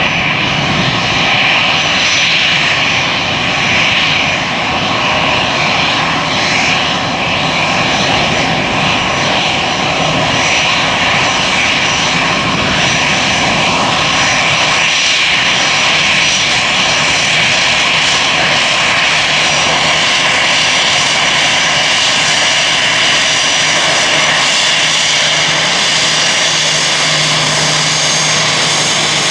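Airbus A320-family airliner's two turbofan jet engines running steadily as it taxis: a loud, even whine with steady high tones over a rushing hiss. A low hum grows stronger in the second half.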